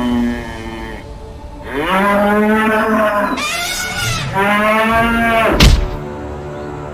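Bull bellow sound effect: two long moos that rise and then fall in pitch. A sharp thud follows shortly after the second.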